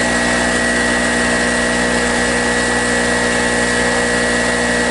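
Small Harbor Freight Storm Cat portable generator's two-stroke engine running at a steady, constant speed, with a steady high whine over the engine note.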